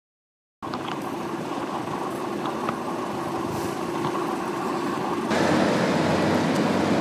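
Street traffic noise, a steady rumble that gets louder about five seconds in, after a brief moment of dead silence at the start.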